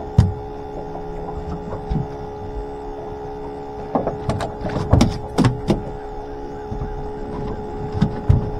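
Steady whine from a bait tank pump set close to the microphone, broken by a few sharp knocks and thumps from the boat, most of them between about four and six seconds in.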